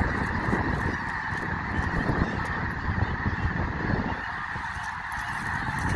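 A huge flock of snow geese in flight, calling all at once in a dense, unbroken chorus of honks. A low rumble underneath eases a little about four seconds in.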